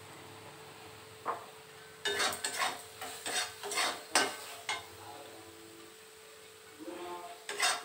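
A metal spatula scrapes and clanks against an aluminium kadai as the masala is stirred. There is a single knock just over a second in, then a run of quick strokes from about two seconds in, and more strokes near the end.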